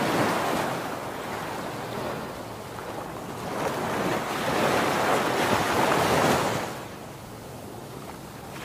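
Whooshing rush of an intro sound effect, like surf or wind, that swells up in the middle and fades out about two seconds before the end.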